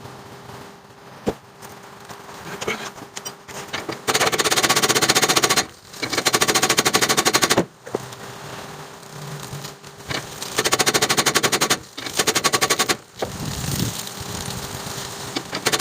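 Pneumatic tool hammering in four bursts of very rapid blows, each lasting about a second and a half to two seconds, with quieter clatter between them.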